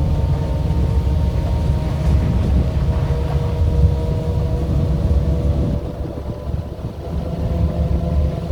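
4x4 vehicle's engine running as it drives along, with a steady low rumble that eases briefly about six seconds in.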